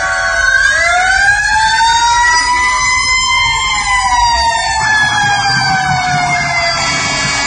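Fire-truck siren sound played loud through Wetsounds boat speakers: several overlapping wailing tones that slowly rise and fall, settling into steadier tones near the end.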